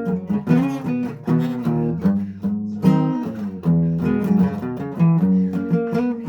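Acoustic guitar strummed and picked in an instrumental passage between sung lines, a steady run of chords.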